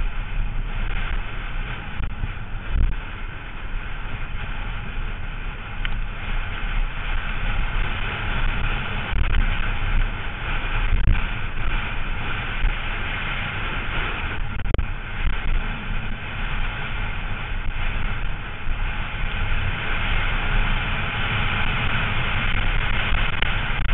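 Steady rush of wind on the microphone and the rumble of a downhill mountain bike's tyres over a loose dirt trail at speed, with a few short thumps from bumps.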